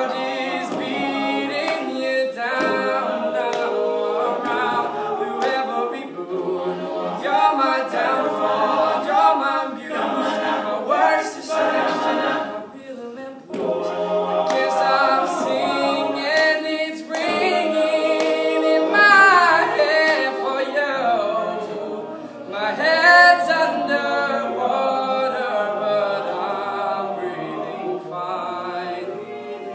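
All-male a cappella group singing, a lead voice carrying the tune over the others' vocal harmonies, with a short break in the sound about thirteen seconds in.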